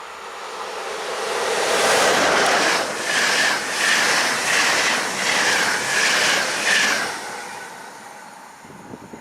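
Train passing close by: the rumble builds up, then wheels beat rhythmically over the rail joints, roughly two beats a second, for about five seconds before fading away.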